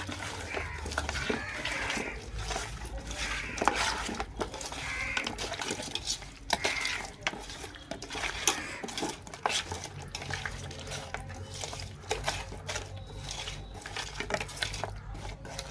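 Chicken being mixed by hand with curd and spices in a metal bowl: irregular clinks, knocks and wet scraping against the bowl.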